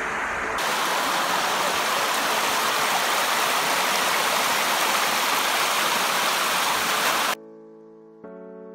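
Waterfall water cascading over a rock face close to the microphone: a loud, steady rushing hiss. It cuts off abruptly about seven seconds in, replaced by soft piano-like background music.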